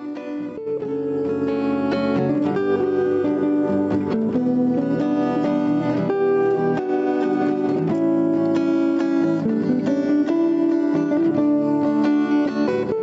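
Background music led by plucked guitar, fading in over the first second or two and then playing steadily.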